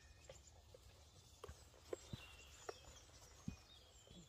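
Quiet woodland ambience: faint birds calling, with a handful of short, soft, irregular taps.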